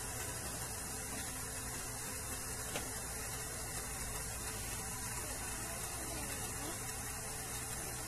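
Steady hiss with a low mains hum underneath and no distinct event, apart from one faint click nearly three seconds in.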